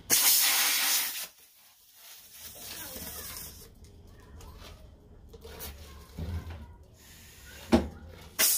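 Compressed air hissing loudly for about a second, then stopping abruptly, followed by quieter work sounds with a couple of sharp knocks near the end.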